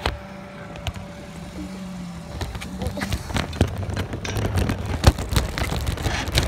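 Metal shopping cart rolling over pavement with a rider in it, its wheels rumbling and the wire basket rattling and clicking. The rolling starts and grows louder about two and a half seconds in, after a low steady hum.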